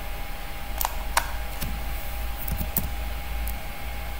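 A few separate computer keyboard keystrokes, sharp clicks twice about a second in and a short cluster in the second half, over a steady faint hum.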